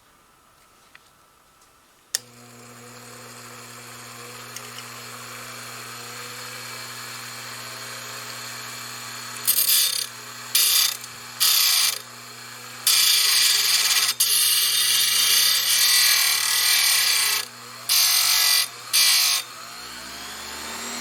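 Small electric drill switched on with a click about two seconds in and running with a steady hum. From about nine seconds in, a self-made flat, angle-cut drill bit cuts into a watch dial in several short loud bursts and one longer one, drilling a recess to seat a dial foot. Near the end the motor is switched off and winds down in falling pitch.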